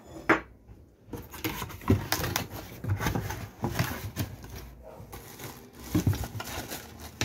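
Hands rummaging in a cardboard box, rustling and crinkling the plastic wrap around a power router, with irregular small clicks and scrapes. Two sharp knocks come right at the start.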